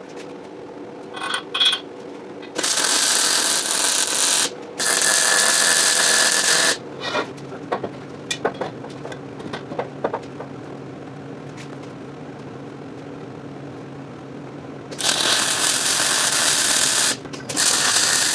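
MIG welder tack-welding steel pipe: a few brief sputters, then four bursts of arc crackle about two seconds each, two after a couple of seconds and two near the end, with a steady low hum between them.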